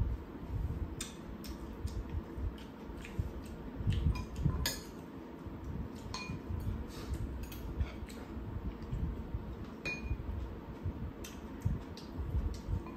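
Metal spoon and chopsticks clinking and tapping against ceramic bowls and a pan during a meal: scattered light clinks, a few ringing briefly, with a louder cluster about four to five seconds in.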